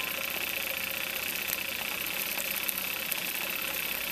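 Scratch-built O gauge live steam engine with an alcohol-fired boiler, running freely on blocks just after coming up to steam: a steady hiss with light scattered ticks as its steam cylinder works and the wheels and rods turn.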